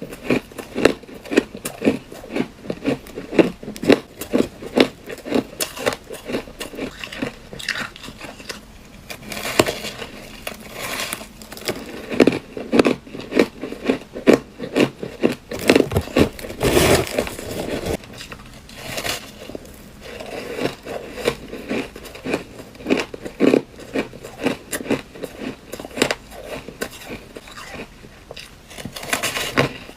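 A person biting and chewing crunchy ice close to the microphone: a dense run of sharp crunches, several a second, with a louder burst of crunching about two-thirds of the way through.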